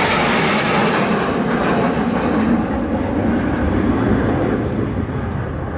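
Aircraft flying past in an airshow display, its engine noise loud and steady while the higher part of the sound slowly fades as it moves away.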